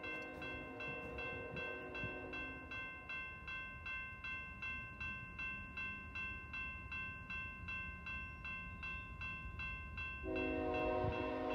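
Railroad crossing bell ringing steadily at about two strikes a second, warning of an approaching train. A freight locomotive's horn fades out about two seconds in, then blows again, louder, about ten seconds in as the train approaches the crossing.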